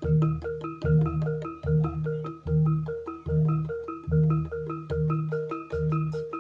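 Javanese gamelan music for a jaranan dance: struck metallophones play a quick, steady repeating pattern over a low note that returns a little more than once a second.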